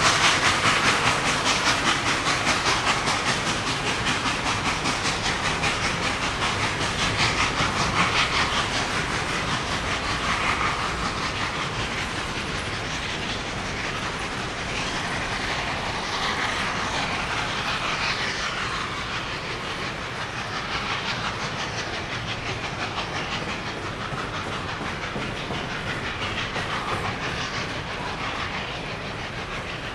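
Loaded coal hopper cars rolling past, their wheels clicking over rail joints. Behind them, the exhaust and steam of N&W 1218, a 2-6-6-4 articulated steam locomotive working hard at the head of the train, fades steadily into the distance.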